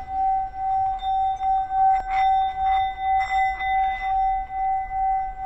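Small hand-held metal singing bowl sung by rubbing a wooden striker around its rim: one sustained ringing tone with higher overtones that swells and fades about twice a second as the striker circles. There is a light rasp on a few passes midway.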